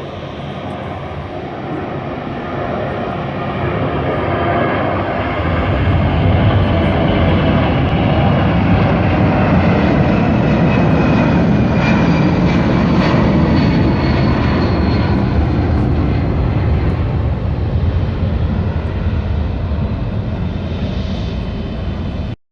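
Boeing C-17 Globemaster III's four turbofan engines at takeoff power, heard from behind: the jet noise grows louder over the first few seconds and then holds, with a high whine sliding down in pitch. It cuts off abruptly near the end.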